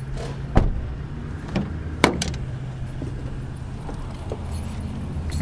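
A vehicle door being shut: a sharp thud about half a second in, followed by another sharp knock about two seconds in and a few lighter clicks, over a steady low hum.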